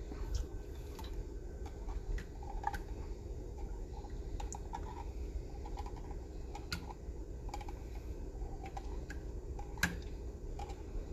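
Irregular light clicks and taps of a metal can and a table knife against a metal pot as a can of thick condensed milk is tipped and emptied, over a steady low hum.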